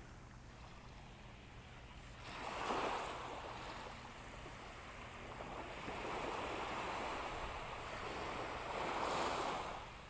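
Small waves breaking gently on a sandy beach and washing up over the sand, swelling three times: about two seconds in, again midway, and loudest just before the end.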